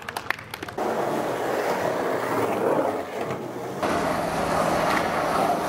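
Skateboard wheels rolling over rough pavement: a steady gritty rolling noise that starts about a second in, after a few sharp clicks and taps of the board.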